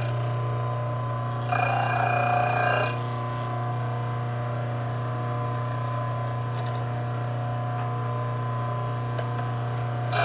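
Delta bench grinder motor running with a steady hum, while a drill bit held in a four-facet sharpener's collet is ground against the spinning wheel, giving a ringing whine about 1.5 to 3 seconds in and again at the very end. In between, the bit is off the wheel and only the motor hum is heard.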